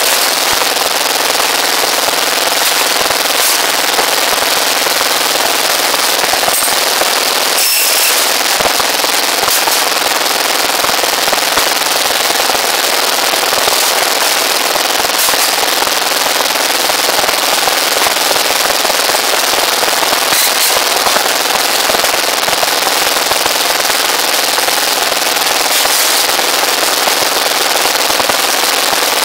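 Small engine driving a rebar bending machine, running loudly and steadily, with a few sharper metallic knocks spread through it as steel reinforcing bars are bent on the turntable.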